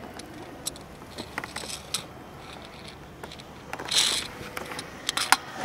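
Scattered small clicks and knocks, with a brief, louder rustling hiss about four seconds in and a quick cluster of clicks near the end.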